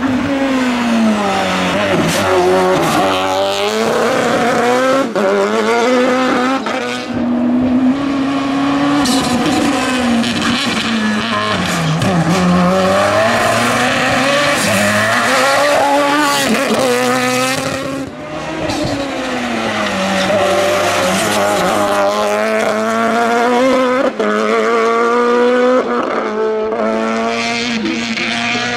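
Turbocharged 1155 cc Citroen Saxo hill-climb car at full throttle. The engine note climbs steeply, drops suddenly at each gearchange, then climbs again, over and over as the car drives past.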